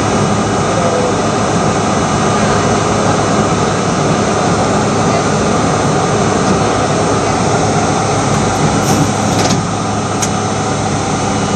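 Steady loud mechanical drone of an R32 subway car standing in an underground station. A brief hiss comes about nine seconds in, and a click follows a second later.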